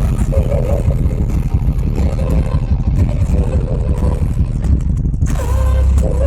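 Live symphonic metal band at full concert volume, recorded through a phone microphone with a muddy, distorted sound: a dense low rumble of rapid drums and guitars smears the music. About five seconds in, a clearer guitar melody line comes through.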